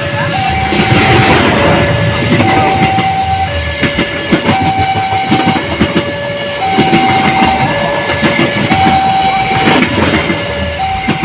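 A two-tone hi-lo warning siren, switching between a higher and a lower note about once a second, over the running noise and wheel clicks of a train on the rails.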